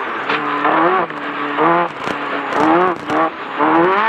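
Class 10 off-road race car engine running hard, its pitch rising and falling again and again as the throttle is worked.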